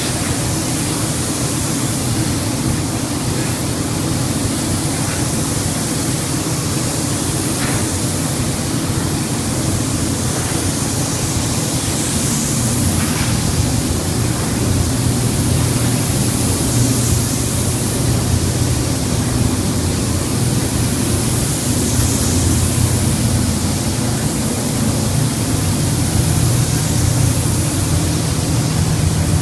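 Gravity-feed spray gun hissing steadily as it sprays a coat onto a car's bodywork, over a steady low drone.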